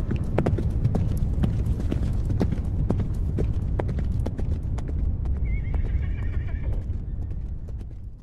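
Wind buffeting an action camera's microphone in a steady low rumble, with many sharp crunches and scrapes of a snowboard and boots on packed snow.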